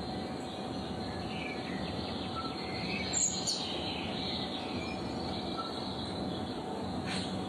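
Outdoor background ambience: a steady low rumble with a few short, high chirps, and a brief high falling whistle about three seconds in.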